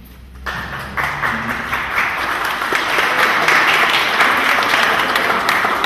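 Audience applauding. The clapping starts about half a second in and swells to a full, steady round.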